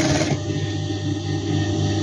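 A sewing machine stitching briefly, stopping a fraction of a second in, over steady background music.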